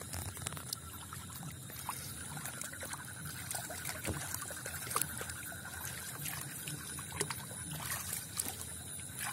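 Water trickling and splashing with small scattered clicks as a man wades and handles a fishing net in shallow water, with a steady high-pitched trill behind it.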